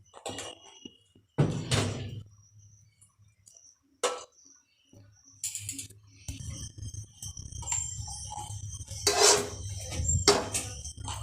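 Metal spoon knocking and clinking against a pan and container as ghee is spooned into the pan, a handful of separate strikes. From about six seconds in, a steady low hum runs underneath.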